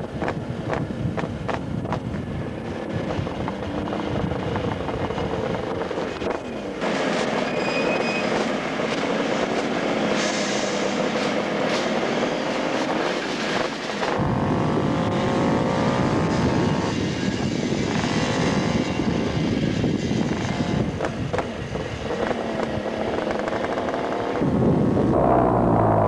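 Kawasaki two-stroke triple motorcycles riding by, several engines running and revving up and down. About 24 seconds in, a bike passes close and loud, its pitch falling as it goes.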